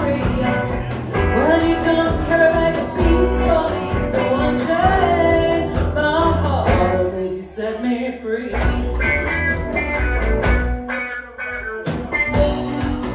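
Live blues-rock band playing with drum kit, bass guitar, electric guitars and keyboard, a woman's voice singing over it in the first half. The bass and drums drop out briefly twice, about seven and eleven seconds in.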